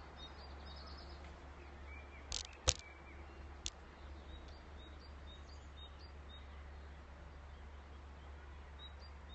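Quiet outdoor ambience with faint, scattered bird chirps over a steady low rumble. A few sharp clicks come about two and a half seconds in, the loudest sounds here, with one more a second later.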